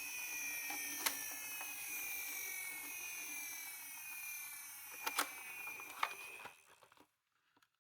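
Small toy car motor whining steadily, its pitch sinking slowly as it runs down, with a few sharp clicks and knocks. It stops about six and a half seconds in.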